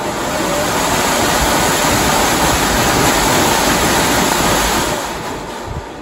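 HVAC squirrel-cage blower running wide open as a shop fan: a steady rushing of air from the blower wheel. It builds over about the first second, holds steady, then fades away near the end.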